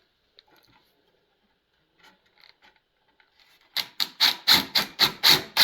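Wooden panels of a mud kitchen sliding and rubbing lightly into place. About three and a half seconds in, a rapid series of sharp knocks starts, about four a second, loud and even.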